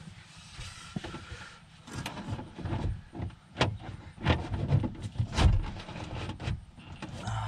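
Irregular knocks and scrapes of a car door's window glass being worked down into the door and onto the window regulator by hand, glass and metal bumping the door frame, with the loudest knock about five and a half seconds in.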